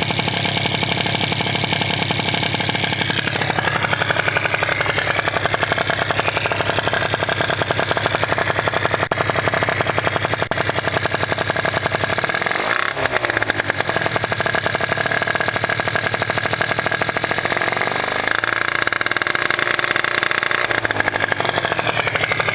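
Two-stroke Malaguti Firefox scooter engine running through a Polini Evo exhaust. Its engine speed shifts several times, with a quick drop and rise in pitch about halfway through.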